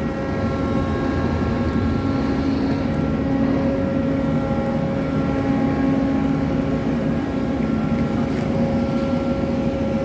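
Ship machinery running with a steady drone and an even hum.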